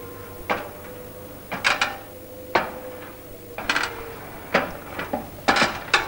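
A series of sharp knocks and clatters, about one a second, some of them doubled. A held music note fades out under them about two thirds of the way through.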